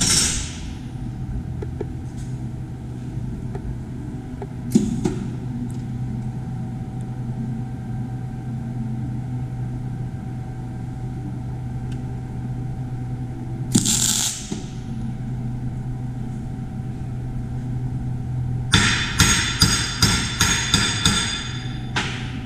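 Steel plates being worked on: a short burst of electric arc welding, a single tack weld, about fourteen seconds in, then a quick run of about ten sharp metallic strikes ringing on the steel over the last few seconds. A steady low hum lies underneath.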